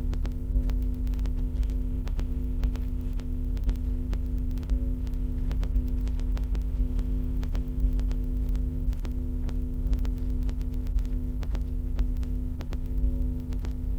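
Steady electrical hum with a low rumble, sprinkled with short irregular clicks.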